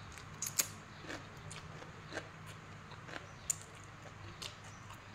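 Close-up eating sounds: rice noodles slurped in and cucumber salad chewed with the mouth open, a string of irregular wet smacks and clicks, the sharpest about half a second in and again past the middle.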